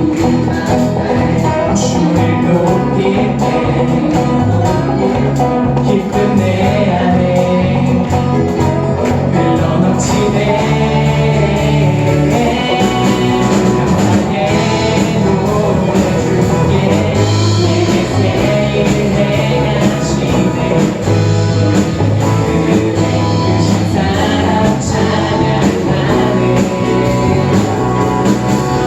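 A live praise band playing, with guitars, bass and drums keeping a steady beat, and singing voices over it.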